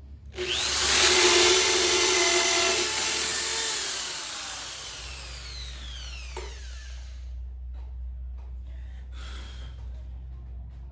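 Electric drill running at full speed for about four seconds, then its whine falling away as the motor spins down. A single sharp click about six seconds in.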